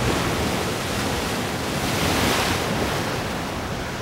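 Ocean surf breaking on a sandy, rocky shore: a steady wash of water that swells about halfway through as a wave crashes, then slowly fades as it runs back.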